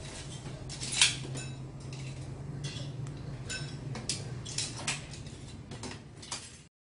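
Scattered light metallic clinks and taps of kitchenware, the loudest about a second in, over a low steady hum; the sound cuts off suddenly near the end.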